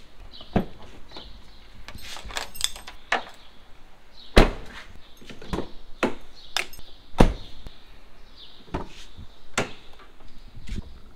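Renault Duster's doors and latches being worked: a series of sharp clicks and several heavy door thuds, the loudest about four and a half and seven seconds in.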